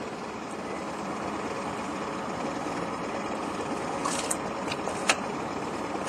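Boat's outboard motor idling steadily, with a couple of short sharp knocks about four and five seconds in.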